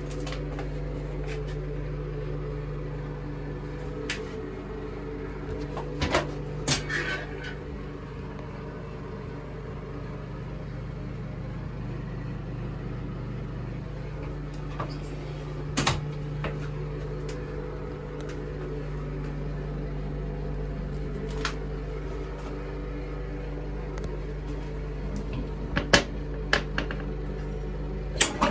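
A steady low machine hum fills the small room, with a few scattered light clicks and knocks. At the very end a toilet flush begins.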